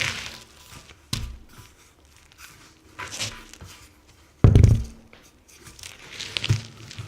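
Car tire rolled and turned on concrete: rubber scuffing and grinding in short bursts, with a thump about a second in and a heavy thud about four and a half seconds in, the loudest sound.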